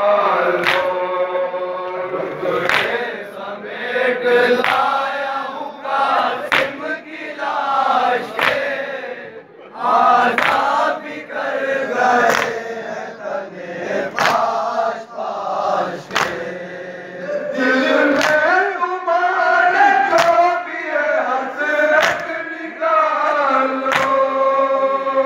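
Group of men chanting a noha in unison, held notes rising and falling together. Sharp slaps land about every two seconds in time with the chant, the beat of matam chest-beating.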